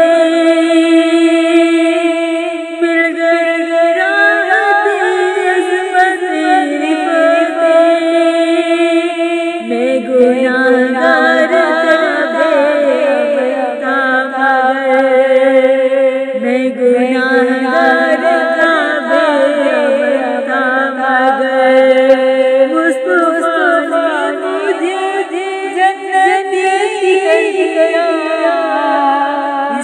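A cappella Urdu naat: a woman's voice singing long, wavering notes, layered with further voice parts in harmony, with no instruments.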